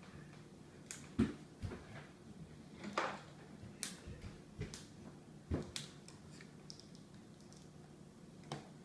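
Scattered small clicks and knocks of plastic toy capsules being handled and worked open at a table, about nine in all, with faint room noise between them.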